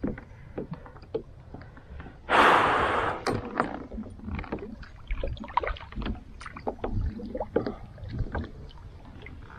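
Kayak paddle dipping into lake water, with small splashes and drips off the blade, and a louder rush of splashing about two seconds in.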